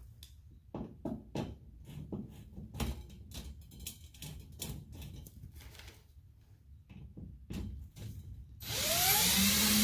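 Small clicks and taps of a screw and tools being handled against a metal air-return grille. Near the end a cordless drill starts up with a rising whine and runs steadily, driving the screw through the grille into drywall.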